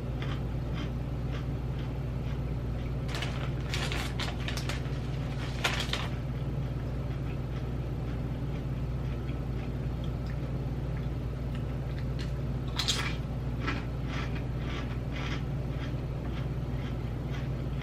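Crunching and chewing dill pickle potato chips close to the microphone, in scattered crackly bursts about three seconds in and again around twelve seconds in, over a steady low hum.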